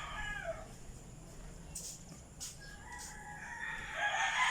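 Rooster crowing: a long crow that begins about three seconds in and is loudest at the end, with a few faint sharp clicks before it.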